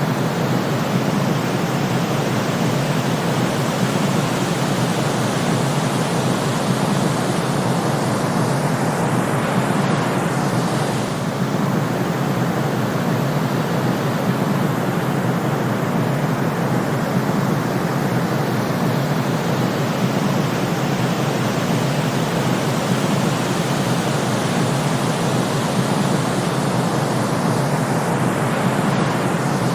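Steady synthetic noise: an even, unchanging hiss weighted toward the low end, with a slight brief dip about eleven seconds in.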